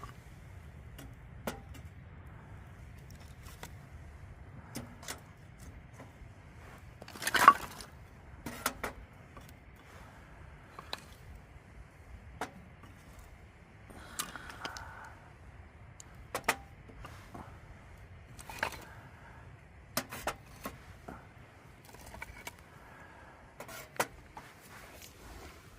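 Wood campfire crackling, with irregular sharp pops over a low steady rumble and one louder burst of crackling about seven seconds in.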